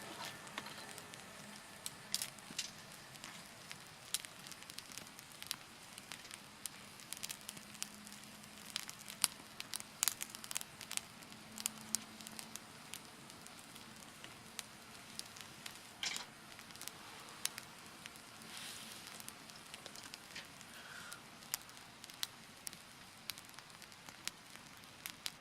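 Wood campfire crackling, with frequent irregular sharp pops over a low steady hiss.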